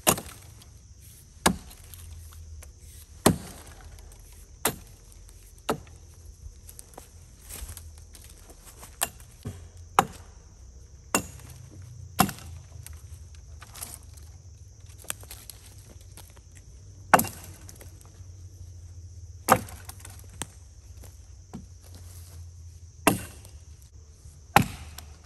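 Council Tool Velvicut Boy's Axe chopping into a felled tree: about sixteen sharp strikes at irregular intervals, one to three seconds apart.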